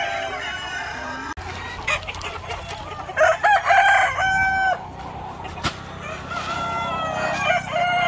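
A flock of native chickens clucking and calling, with a rooster crowing loudly about three seconds in.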